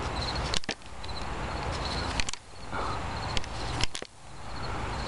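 Handling noise from a rope being tied around the PVC pipe frame of a hoop house: several sharp knocks and rustles against the pipes and plastic cover, over a steady outdoor rumble. A cricket chirps faintly.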